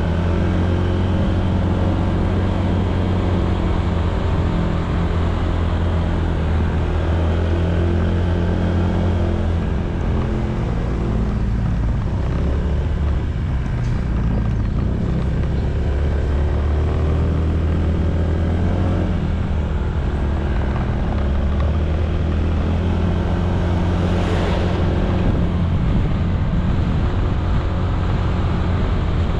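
Honda ADV160 scooter's single-cylinder engine running steadily while riding, its pitch dipping and then recovering around the middle as it slows and picks up again. A brief whoosh of noise comes near the end.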